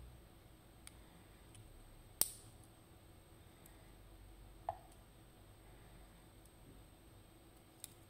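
Steel tweezers clicking and tapping against a Ruko 500 lock cylinder and its small metal pins and springs as the lock is taken apart. A few scattered small clicks, the sharpest about two seconds in, and one tap halfway through that rings briefly like metal.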